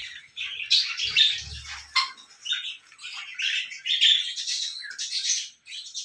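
Helmeted guineafowl calling: a steady run of short, harsh, rapid squawks.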